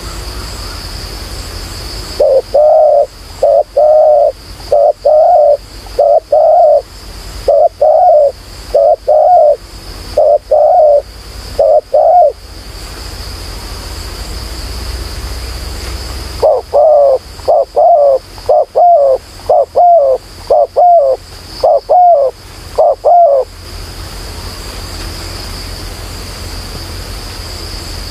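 Spotted dove cooing: two runs of about nine low coos each, roughly one a second, with a pause of about four seconds between them. A steady high insect drone sounds throughout.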